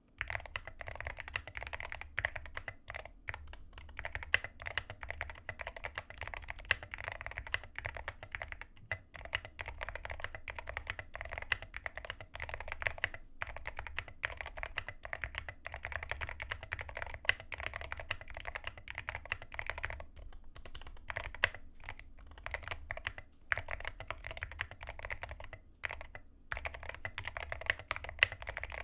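Typing on a Rama M60 60% mechanical keyboard with Zealios V2 67g tactile switches and tall SA-profile keycaps: a fast, steady stream of key clacks, broken by a few brief pauses.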